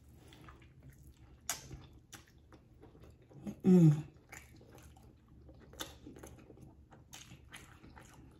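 A person chewing oxtail meat up close with wet lip-smacking and clicky mouth sounds. About three and a half seconds in comes a short, loud hummed vocal sound that falls in pitch.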